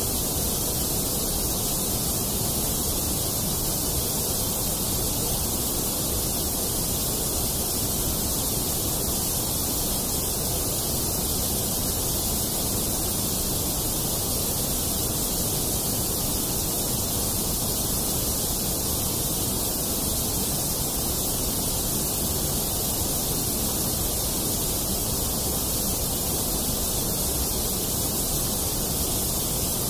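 A steady, unchanging hiss of synthetic noise, strongest in the treble: the masking bed of a subliminal audio track, laid over to hide its affirmations.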